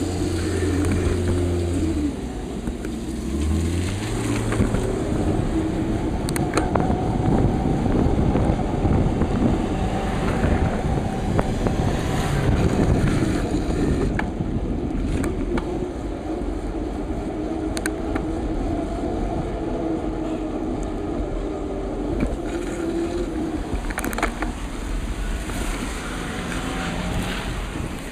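Wind rumbling on the microphone of a moving bicycle ride, with car traffic passing on the road and scattered sharp clicks.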